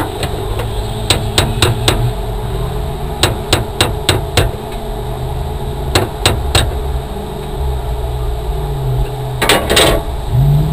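Hammer blows on metal, struck in irregular clusters of two to five, as the broken-down off-road rally car is worked on, heard from inside the cabin over a steady low hum. A short noisy rasp comes near the end.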